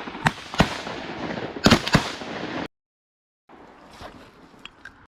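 A volley of shotgun shots from several hunters firing at ducks: about five sharp blasts in the first three seconds, two of them nearly together. The sound then cuts off abruptly and comes back faint.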